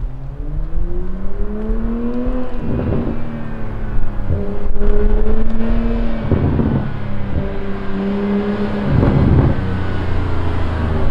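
Straight-piped BMW 840i's turbocharged 3.0-litre inline-six accelerating hard, its exhaust note rising in pitch and breaking three times for upshifts, each shift marked by a short rough crackle. The revs ease off near the end.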